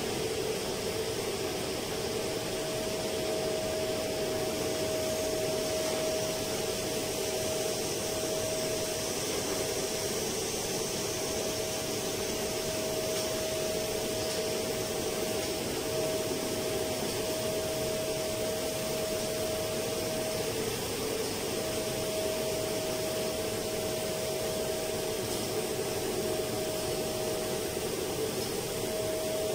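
Steady drone of running machinery, ventilation fans and air-conditioning plant, a constant rushing noise with a steady mid-pitched hum through it.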